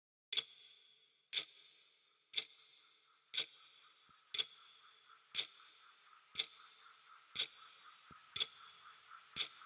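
A clock ticking slowly and evenly, one sharp tick about every second, each with a short ringing tail.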